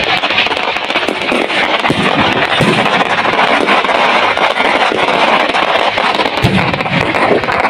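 Aerial fireworks crackling and popping continuously, many small reports packed closely together as the stars burst overhead.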